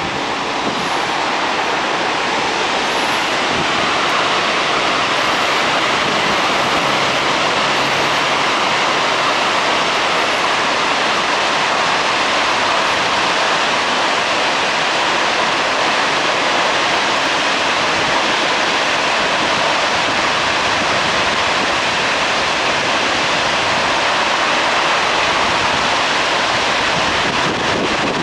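Kawaji Dam's arch dam discharging floodwater, a loud, steady roar of falling water and spray.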